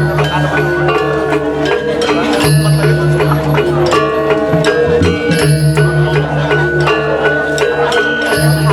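Balinese gamelan playing dance accompaniment: a fast, bright melody on bronze metallophones over a low note struck steadily about three times a second.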